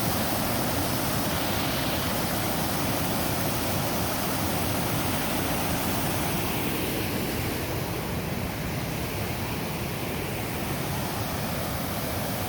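Steady rush of falling water at Koosah Falls on the McKenzie River, a dense, even roar that eases slightly toward the end.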